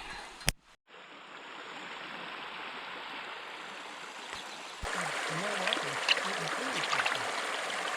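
Mountain stream flowing steadily, an even rush of water. A sharp click and a brief dropout come about half a second in, and from about five seconds in the water is louder, with faint voices under it.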